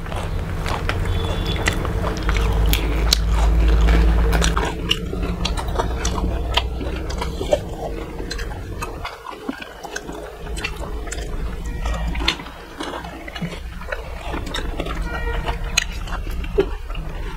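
Crisp pani puri shells filled with tamarind-spiced water being bitten and chewed close to a clip-on microphone, with many sharp crunches and wet mouth sounds over a low rumble that eases off about five seconds in.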